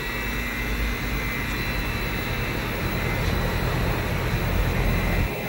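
Three-phase Lennox condensing unit running steadily, its scroll compressor driven by a variable frequency drive from single-phase house power with the condenser fan turning. It makes an even low hum with a few thin, steady high tones over it.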